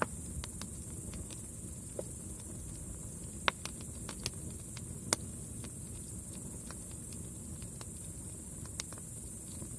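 Campfire burning with a low steady rush and irregular crackles and sharp pops, two of them louder about three and a half and five seconds in. A steady high trill of night insects, like crickets, runs underneath.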